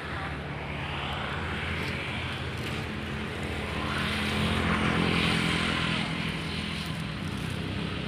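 Truck engine running steadily with a low drone. It grows louder about halfway through, then eases back.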